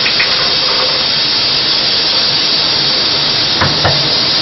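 Cold tap water running steadily over a hot pressure cooker to cool it and bring the pressure down, a constant rushing hiss. Two light knocks sound near the end.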